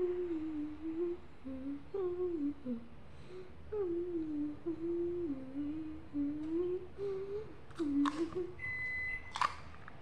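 A girl humming a wandering, tuneless melody in short phrases. Near the end there are a few sharp clicks and knocks and a brief high beep-like tone.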